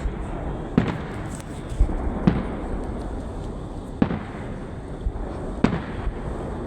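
Fireworks display shells bursting: about five sharp bangs at irregular intervals, a second or two apart, over a steady background rumble.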